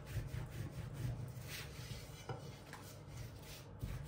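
Long thin wooden rolling pin (oklava) rolling thin yufka dough wound around it on a floured silicone mat, a faint steady rubbing under the palms as it is pushed along.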